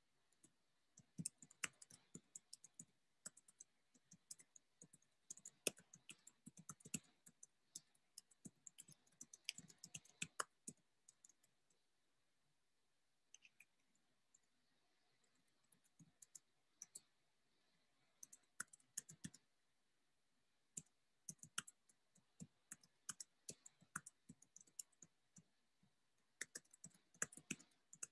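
Faint typing on a computer keyboard: irregular runs of key clicks, broken by short pauses, the longest about halfway through.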